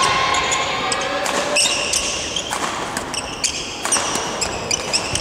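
Badminton doubles rally: several sharp racket hits on the shuttlecock, with sneakers squeaking on the gym floor.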